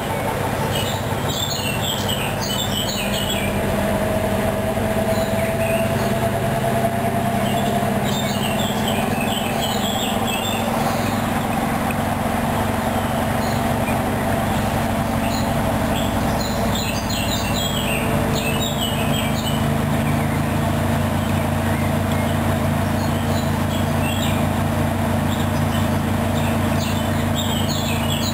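Hoover Dynamic Wash 10+ washing machine running a mini-load programme: a steady mechanical hum from the motor and drum, with a faint slowly rising whine from about four to eight seconds in. Bird chirps come through in short bursts several times.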